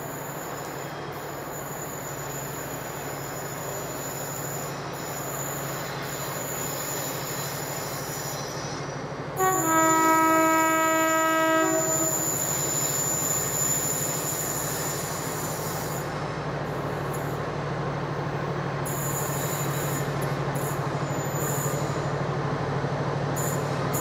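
GE Class 70 diesel locomotive labouring up a steep bank at the head of a heavy loaded ballast train, a steady engine drone growing louder as it nears. About nine and a half seconds in, a locomotive horn sounds for about two and a half seconds.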